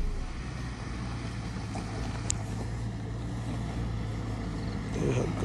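Engine of a Mitsubishi Pajero SUV running steadily in a low, even drone as it climbs a rough dirt track, with a short sharp click about two seconds in.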